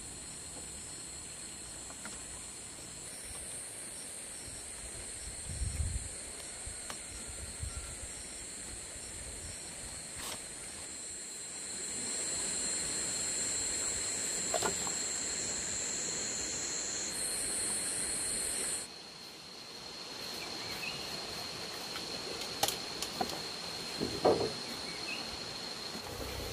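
Steady high-pitched drone of insects in surrounding vegetation; its highest part shifts and then drops out about two-thirds through. Occasional light knocks and rustles of bamboo and vine being handled.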